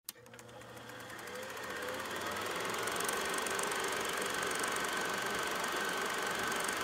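Film projector sound effect: a fast, even mechanical ticking over a steady whir, fading in over the first two to three seconds.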